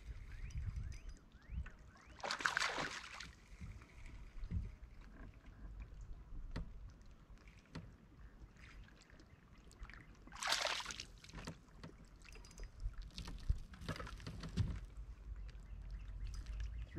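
Water splashing around a bass boat in short bursts: one about two seconds in and two more in the last third. A low steady rumble of water and wind runs underneath.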